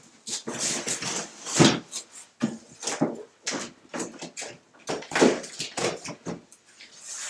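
A cardboard box holding a round fan being lifted onto a cube of air filters and shifted into place: irregular cardboard scrapes, rubs and knocks, the loudest about a second and a half in.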